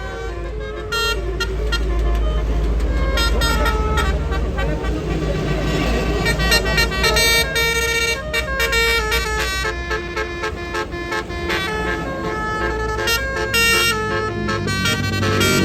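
A tour bus's telolet basuri horn playing a melody as a run of short toots that step up and down in pitch, over the low rumble of the bus engine.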